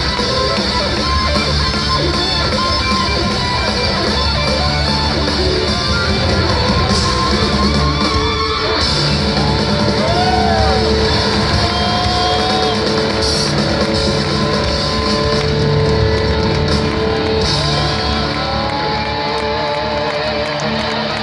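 Live rock band playing electric guitars, bass guitar, keytar, keyboards and drums, loud and continuous, in the echo of a large arena.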